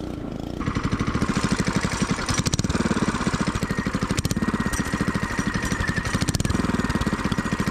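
Go-kart's small engine running at a steady idle, an even pulsing putter that comes in about half a second in, with a faint steady whine above it.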